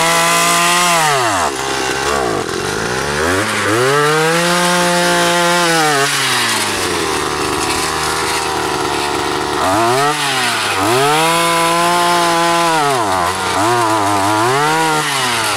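Petrol earth auger engine revving up and holding high while the auger bores planting holes in garden soil, then dropping back to idle between holes. This happens about five times, with the longest idle in the middle.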